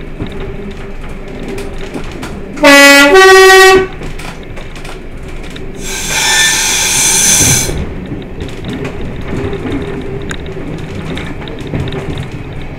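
Class 122 diesel railcar sounding its two-tone horn: a short low note, then a longer higher note, over the steady running noise of the train. A hissing sound follows a few seconds later and lasts under two seconds.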